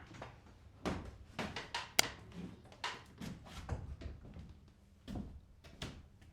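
A series of irregular knocks, clicks and clunks, like objects being handled, set down or moved in a small room, one or two a second, with a sharper knock about two seconds in.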